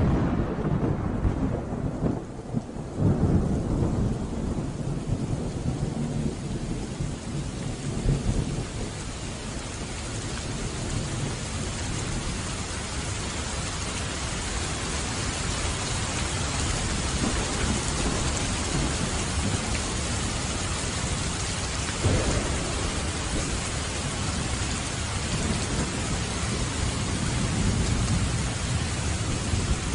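A thunderstorm: heavy rain falling in a steady hiss, with deep rolls of thunder in the first few seconds and shorter rumbles about eight and twenty-two seconds in.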